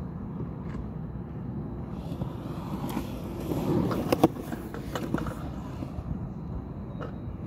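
Surfskate on Carver CX trucks rolling over a concrete skatepark bowl: a steady wheel rumble that swells as the rider passes close by about four seconds in, with a few sharp clacks then and shortly after.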